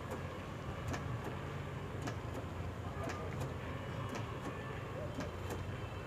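Small backpack crop sprayer's pump motor running with a steady low hum, with faint, irregular ticks over it.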